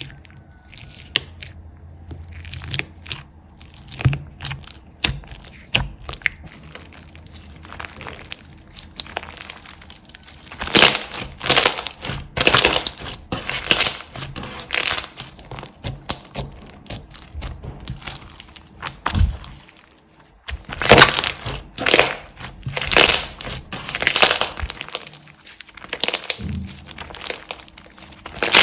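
Slime being pressed and squeezed by hand, giving many quick clicks and pops, in louder surges about once a second from about ten seconds in.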